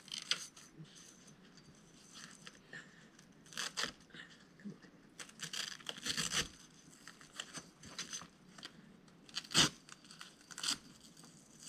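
Irregular rustling, crinkling and scraping of a tarp and its cord being handled and pulled tight by hand, in short scattered bursts.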